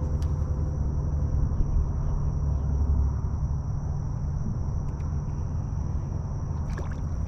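Insects trilling steadily in a thin, continuous high band, likely crickets, over a louder steady low rumble; a few faint clicks near the end.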